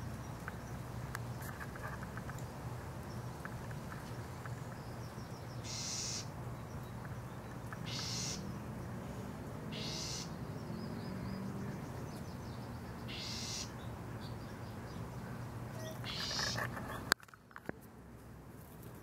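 Bird calling over and over, a short harsh high call roughly every two seconds, over a low steady background hum. A sharp click near the end, after which the background goes quieter.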